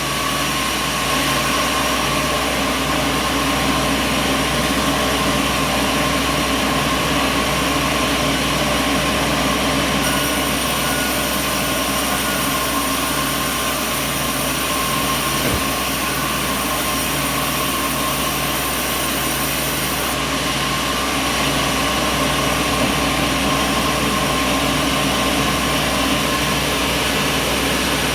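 Sawmill machinery running steadily, an even mechanical hum and whine with no breaks or changes in pace.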